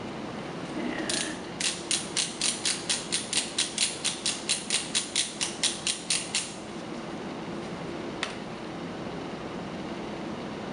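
Micropipette volume dial being turned, its ratchet clicking about twenty times in quick even succession over some five seconds, as the pipette is set to the right volume; one more single click comes a couple of seconds later.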